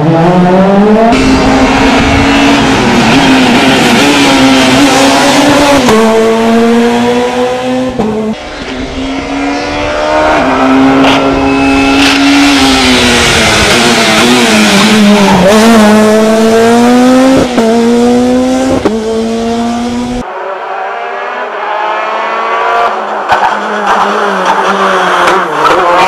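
Rally cars' four-cylinder engines revving hard one after another, the engine note climbing and dropping sharply again and again through gear changes.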